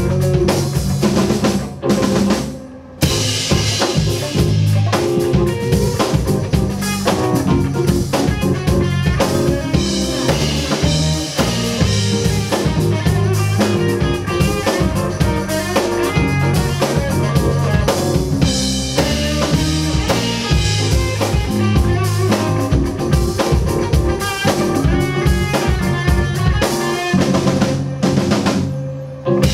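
Live band playing an instrumental passage: drum kit and electric guitar over a steady groove, with a short break about three seconds in before the full band comes back in.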